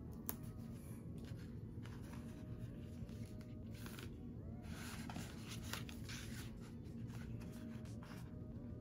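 Paper and sticker sheets being handled: light clicks and taps, with a rustle of stiff paper about two-thirds of the way through as a sticker sheet is lifted and turned, over a low steady room hum.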